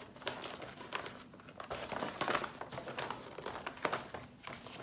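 Paper rustling and crinkling as a folded paper poster is unfolded and opened out by hand, getting busier about halfway through.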